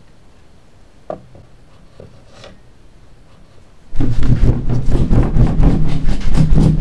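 Faint rubbing and clicks of an old rotary telephone's handset being handled and set back on its cradle, with one sharper click about a second in. From about four seconds in, loud music with a percussive beat takes over.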